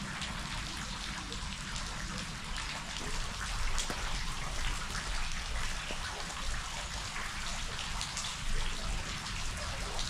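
Water splashing and trickling steadily, a constant patter of many small splashes with a low rumble underneath.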